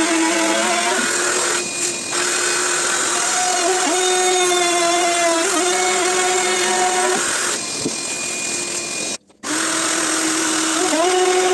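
Einhell TP-RO 18 Li BL brushless cordless router running under load as it cuts deep into hard steamed beech. It makes a steady whine that sags briefly in pitch a few times as the bit bites. The sound cuts out for a moment about nine seconds in, then runs again.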